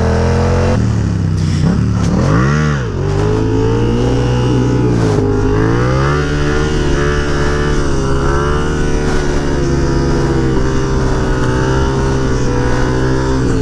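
Yamaha FZ-07 689 cc parallel-twin engine revving as the bike is lifted into a wheelie, with a quick drop and rise in revs about two and a half seconds in. The engine is then held at fairly steady revs, wavering slightly with the throttle, while the bike rides on its back wheel.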